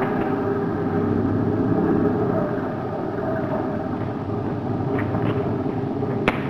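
Steady rumbling hum of a sci-fi ray-machine sound effect (the Atom Harmonizer being run to shrink a spaceship), with a few sharp clicks toward the end.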